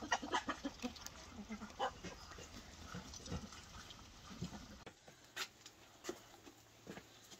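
Farmyard chickens and Muscovy ducks feeding at a trough: scattered quick pecking clicks and short, low calls. About five seconds in this gives way to a quieter background with a few separate sharp clicks.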